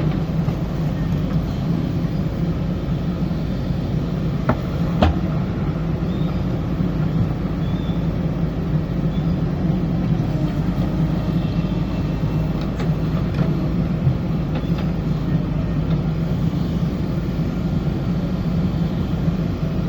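Diesel engine of a JCB backhoe loader running steadily under work, with a few sharp knocks about four to five seconds in and again around thirteen seconds.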